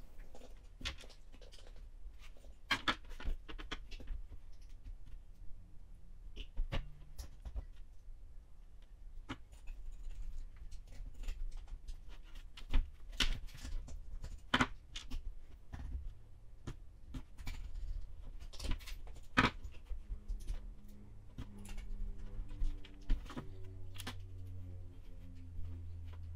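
Scattered clicks, taps and knocks of small plastic and metal RC parts and hand tools being handled and set down on a workbench during a servo install on an RC crawler chassis. A faint steady low hum of several tones comes in over the last few seconds.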